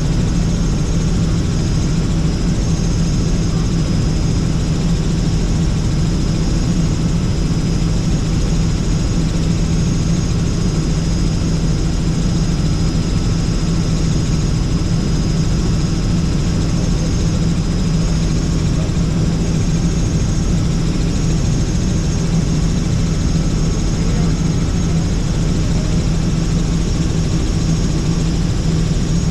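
Helicopter in level flight heard from inside the cabin: steady engine and rotor noise with a constant low hum and a thin, steady high whine.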